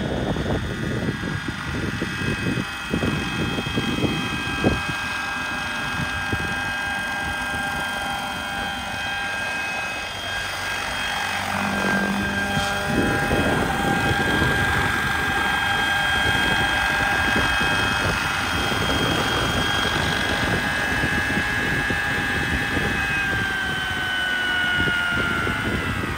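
1:6 scale Vario Bo 105 radio-controlled model helicopter hovering close to the ground, its drive and rotors giving a steady high whine over a rushing rotor noise. About three-quarters of the way through the whine starts falling in pitch as the rotors wind down after it has landed.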